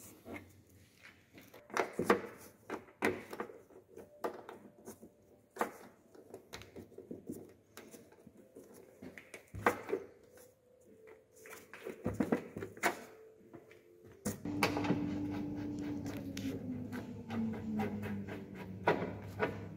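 Irregular clicks and knocks of hands fitting a reversing camera and its bracket into a car's number-plate recess. About two-thirds through, a steady hum with a slowly falling tone sets in, under more clicks from a screwdriver working on a plastic number-plate frame.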